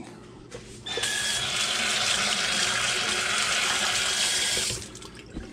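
Kitchen sink faucet running while hands are rinsed under the stream. The water comes on about a second in, runs steadily, and shuts off near the end.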